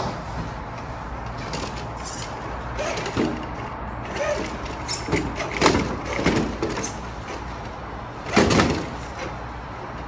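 Scale RC rock crawler truck clunking and knocking over rocks as it crawls: a string of short knocks, the heaviest one near the end, over a steady low hum.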